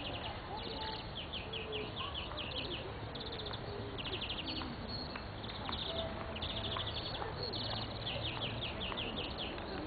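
Small songbirds chirping in short, rapid high trills, repeated over and over, over a steady low hum.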